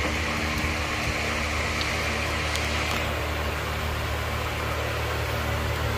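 Steady motor hum with a hiss running on underneath, with a few faint clicks.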